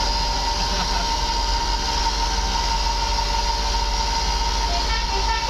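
Steady running noise of a vehicle with a constant high tone. A few short pitched notes come in near the end.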